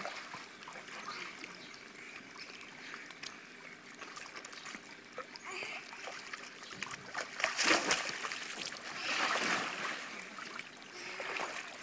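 Children splashing and moving through the water of a small inflatable pool, with a louder splash a little past halfway and another stretch of splashing soon after.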